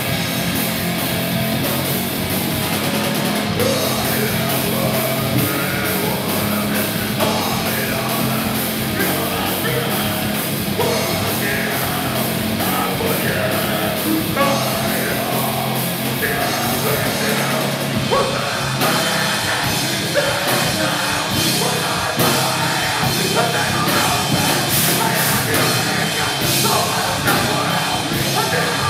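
Thrash metal band playing live: distorted electric guitar, bass and drum kit, with shouted vocals.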